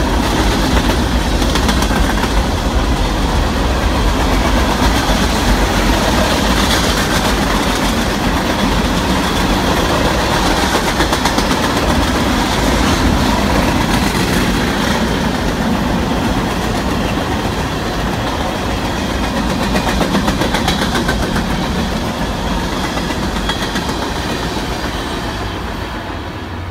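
Cars of a Union Pacific manifest freight train rolling past: a steady, loud noise of wheels on rail with faint clicking, fading near the end as the train moves away.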